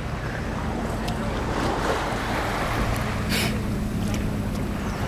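Shallow sea water lapping and sloshing around a wader, with wind on the microphone and a steady low hum underneath; a brief hiss about three seconds in.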